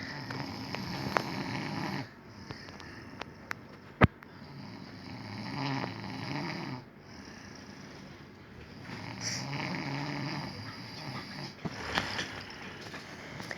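A man snoring in deep sleep: three long, drawn-out snores about four seconds apart. A single sharp click comes just after the second second-mark of the first pause, the loudest moment.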